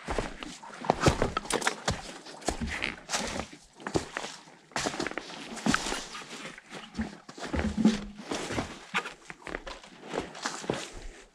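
Footsteps on forest floor with twigs and branches cracking and snapping, irregular and close, as someone scrambles through fallen trees across a woodland trail, with a few short grunts of effort.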